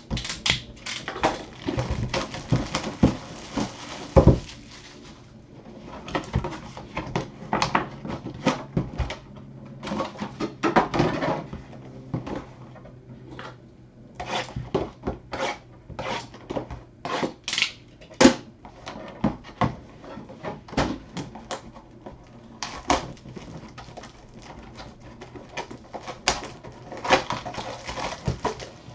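A 2019 Leather & Lumber baseball card box and its packs being opened and handled by hand: irregular crinkles, tears, clicks and taps of cardboard and wrappers.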